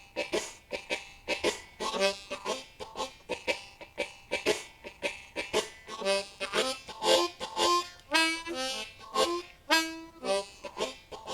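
Unaccompanied blues harmonica on a Low F Hohner Marine Band Crossover, played in second position in a shuffle groove. It plays rhythmic chordal stabs, with some notes bent and sliding in pitch.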